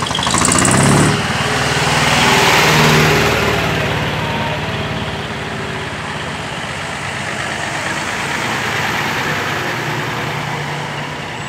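Diesel engine of a decorated Japanese truck running as it drives slowly past, louder for the first few seconds and then settling to a steady low drone.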